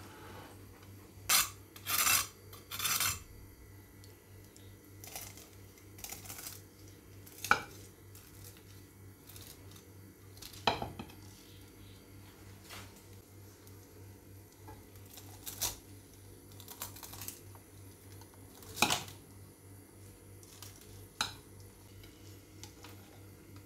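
A knife cutting through a crisp tahdig rice crust on a ceramic plate: three short crunching, rasping strokes near the start, then scattered sharp clicks of metal on the plate as the slice is cut and a metal server is slid under it.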